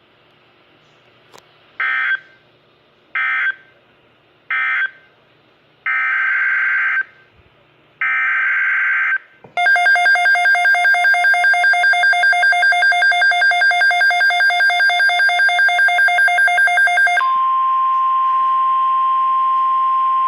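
Emergency Alert System SAME data bursts on NOAA Weather Radio: three short bursts, then two longer ones, marking the end of one warning and the header of the next alert. A pulsing electronic alarm follows at about four beeps a second for several seconds, then the steady single-pitch 1050 Hz weather radio alert tone.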